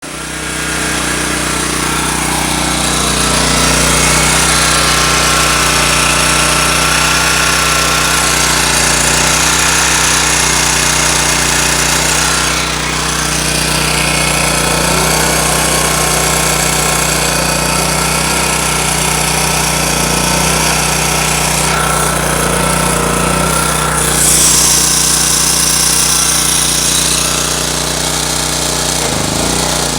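Honda EX1000 portable generator running steadily under load while it powers a window air conditioner, with a steady thin whine over the engine note. The sound shifts briefly about a dozen seconds in and again a little past twenty seconds.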